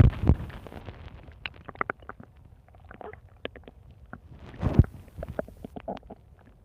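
Stomach growling: a series of short gurgles and squeaky blips, with a louder, deeper rumble just before five seconds in.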